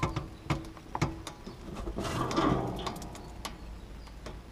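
The front of an RV settling as it is lowered on its leveling jacks: a series of sharp clicks and knocks from the chassis, with a short rushing noise about two seconds in.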